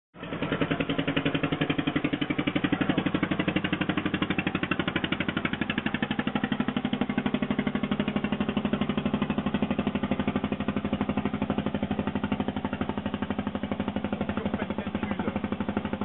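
A boat engine running steadily, with a rapid, even chugging.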